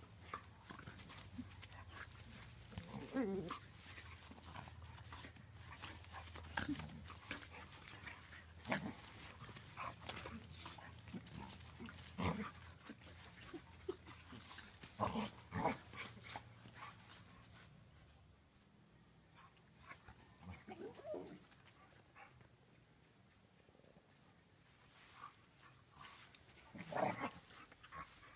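Two dogs play-wrestling, with short growls and scuffling noises coming in scattered bursts. The loudest bursts are near the start, in the middle and near the end.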